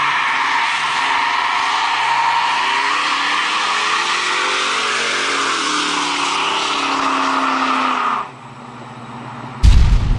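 1970 Pontiac GTO Judge doing a burnout: rear tires squealing steadily over the engine, cutting off about eight seconds in. A loud low boom starts near the end.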